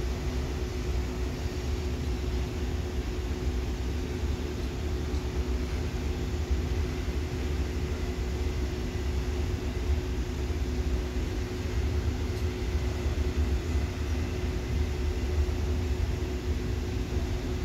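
Steady low rumble of a running vehicle with a constant hum, unchanging throughout.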